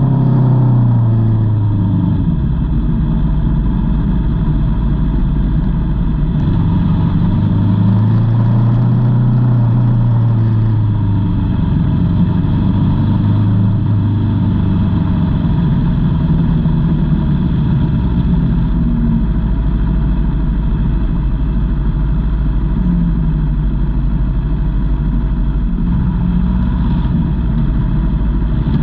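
Aprilia Tuono V4's V4 engine heard from on board the motorcycle. Its revs drop sharply in the first second, then it runs at low revs with a few gentle rises and falls, with no hard acceleration.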